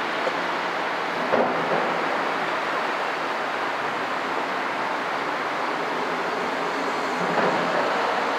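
Steady rushing noise with no pitch, broken by a brief knock about a second and a half in and another near the end.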